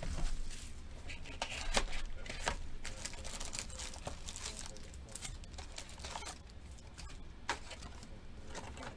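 Trading-card box packaging and pack wrappers crinkling and tearing by hand, in irregular crackles with a few sharper rips.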